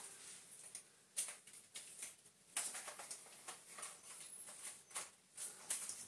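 Light, scattered clicks and knocks as a vacuum cleaner hose adapter is worked off a floor head, with the cleaner switched off.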